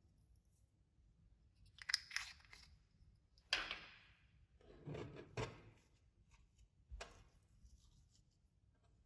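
Clear slime with glitter mixed in being stretched and squished by hand: four short sticky sounds, the first two the loudest.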